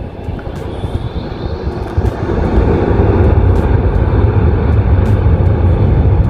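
Turbofan engines of a twin-jet with rear-mounted engines running as it moves along for takeoff: a deep, steady rumble that grows louder about two seconds in.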